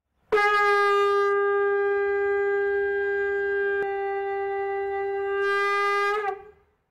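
A conch shell (shankh) blown in one long, steady note of about six seconds, with a bright, buzzy edge as it starts and again as it swells just before it stops.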